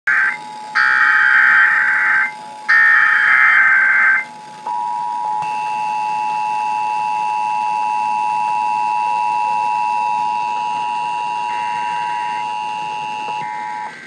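Emergency Alert System test tones played through a radio's speaker. Three bursts of the harsh, screeching SAME digital header come in the first four seconds. The steady two-tone attention signal runs under them and then carries on alone for about nine seconds.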